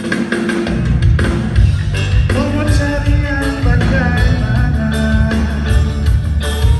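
A band playing a rock-style song with drums, bass and singing, kicking in abruptly.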